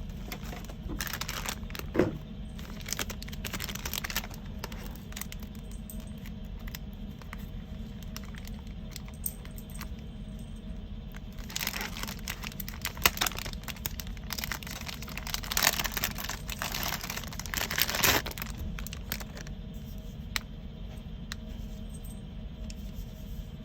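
Packaging and small accessory parts being handled: irregular rustling and crinkling with scattered clicks and taps, busiest in the middle stretch, over a steady low hum.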